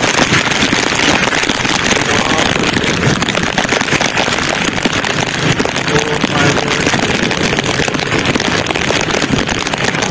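Steady rush of wind and road noise from a vehicle moving along a wet road, with no distinct engine note standing out.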